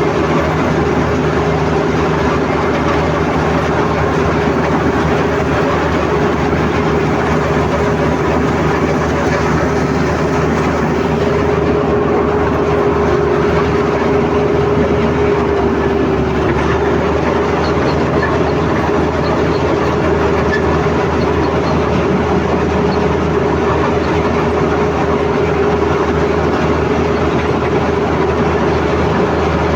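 Komatsu D85ESS crawler bulldozer working, its diesel engine running steadily with a continuous whine that holds one pitch.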